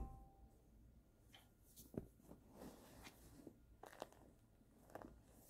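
Near silence, with a few faint rustles and soft knocks from a baby doll and its clothes being handled. The sharpest knock comes about two seconds in, with others near the end.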